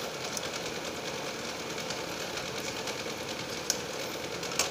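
A steady machine hum with a fast, even flutter, with two sharp clicks near the end as a bare laptop motherboard is picked up and handled on the workbench.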